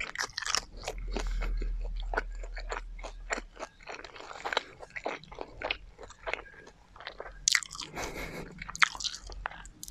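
Close-miked chewing of garlic fried chicken: a dense run of sharp crunchy clicks and wet mouth sounds. A low rumble comes in about a second in and lasts a couple of seconds.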